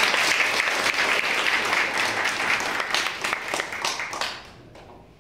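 Audience applauding, many hands clapping together; the applause dies away about four and a half seconds in.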